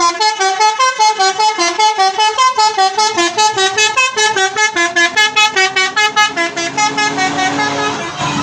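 A bus's Basuri telolet musical horn playing a fast tune of short stepped notes, about five a second. It starts suddenly, and the notes lengthen over a held low tone before it ends.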